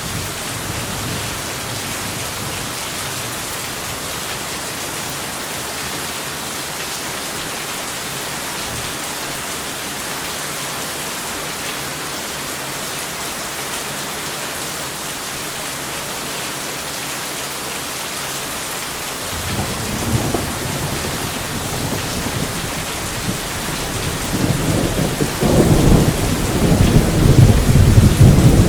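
Steady heavy rain, with rolling thunder that starts about two-thirds of the way through and builds into a loud low rumble near the end.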